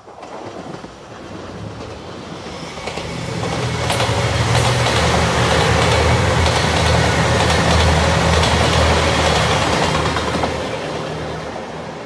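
JR Shikoku 2700 series diesel multiple unit passing at speed. Its diesel engines run with a low hum under the rumble and clatter of wheels on rail. It grows louder as the train approaches, is loudest through the middle as it goes by, and fades as it draws away.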